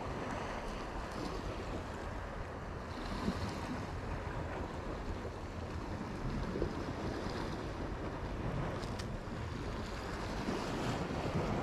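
Sea washing against a rocky shore, a steady rushing noise, with wind buffeting the microphone.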